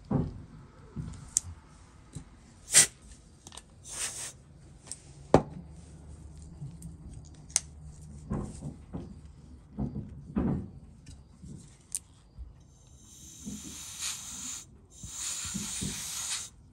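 Small tools clicking and tapping against watch parts on a watchmaker's bench, then two spells of steady hiss, each about one and a half to two seconds long, near the end.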